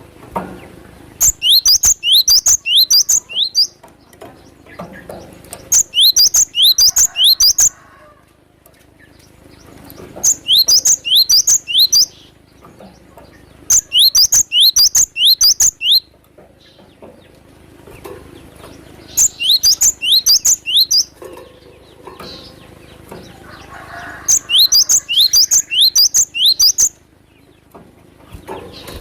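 Cinereous tit (gelatik batu) singing: six bursts of rapid, sharp, high notes, about four a second, each burst lasting about two seconds with a pause of two to three seconds between them.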